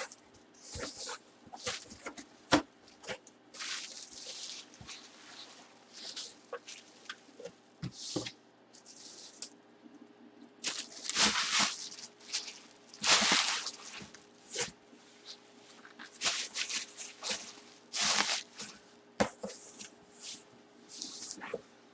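Handling noises: short rustling swishes, as of plastic or cardboard packaging, among scattered clicks and knocks, with the loudest swishes in the middle and late part.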